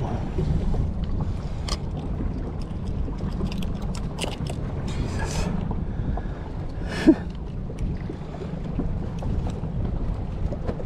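Wind rumbling on the microphone aboard a small boat at sea, with scattered light clicks and knocks and one sharp knock about seven seconds in.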